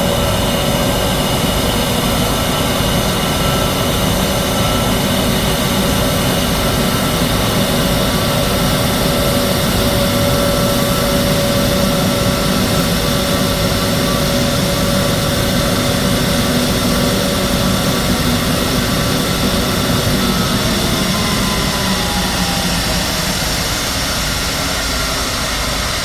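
Airbus A321neo's twin turbofan engines running at low thrust as it is marshalled in: a loud, steady jet rush with high whines. About three quarters through, a whine falls in pitch and the level eases slightly.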